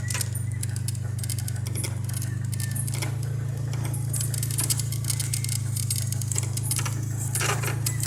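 A vehicle running steadily with a constant low drone, with light jangling rattles now and then, loudest about three-quarters of the way through.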